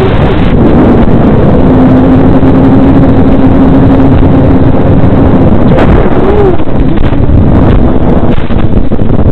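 Loud, steady rushing of wind over the onboard microphone of an FPV plane in flight, with a faint steady hum from its electric motor. The plane is flying itself home in failsafe after losing its radio link.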